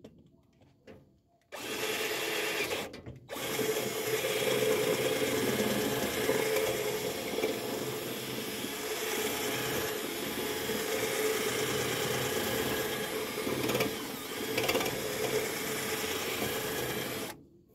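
Cordless 20V drill running, boring a hole through the lid of a bottle. It runs briefly, stops for a moment, then runs steadily for about fourteen seconds and stops near the end.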